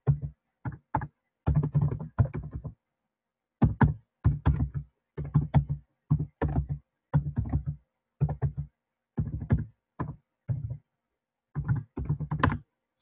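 Typing on a computer keyboard in short quick bursts of a few keystrokes each, with brief pauses between, as a terminal command is typed out.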